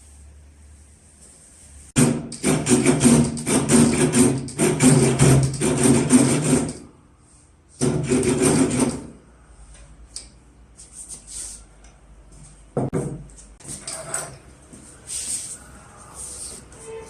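A hand tool working wood in quick, rasping strokes: a long run of several seconds, a shorter burst, then scattered knocks and scrapes.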